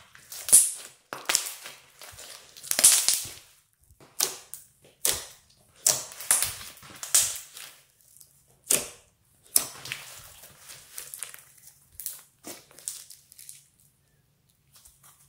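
Hands kneading and squeezing a lump of glittery clear slime mixed with floam beads, giving irregular wet crackles and sharp pops, a few a second, dying away near the end.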